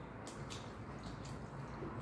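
Faint wet clicks and crunches of pani puri being eaten and handled out of brass bowls, a few short ticks over a low steady hum.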